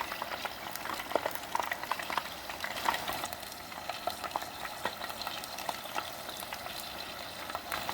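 Battered chicken thigh pieces deep-frying in hot oil: a dense, steady sizzle full of small pops and crackles.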